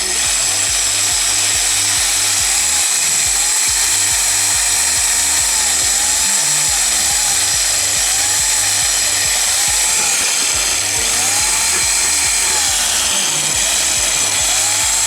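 A heavy-duty, high-torque hand drill boring a bolt hole through a car's sheet-metal trunk lid. It runs steadily under load with a constant high whine.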